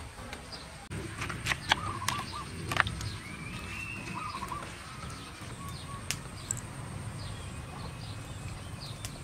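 A few sharp clinks of a spoon against a metal tray as food is tossed in it, with short bird calls over a steady low background.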